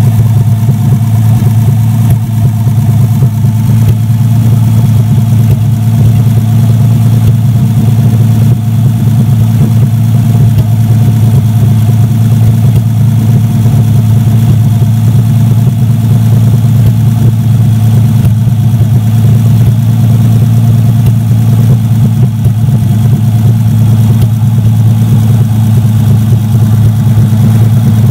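Jeep Cherokee XJ 4.0-litre inline-six engine, out of the vehicle on a stand, running at a steady, even speed.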